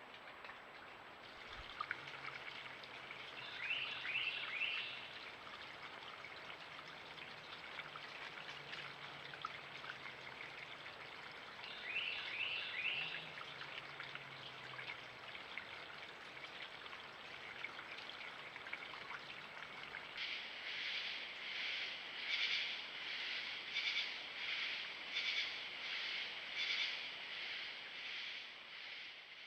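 Mountain creek flowing steadily. Twice in the first half a bird gives a short run of quick high calls, and in the last third a high pulsing call repeats about once or twice a second.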